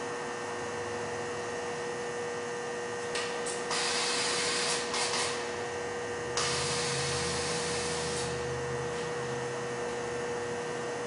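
Two bursts of compressed-air hiss from a pneumatic industrial manipulator's gripper as it works on a steel cylinder. The first comes about three seconds in and breaks up a few times; the second starts about six seconds in and lasts about two seconds. A steady hum runs underneath.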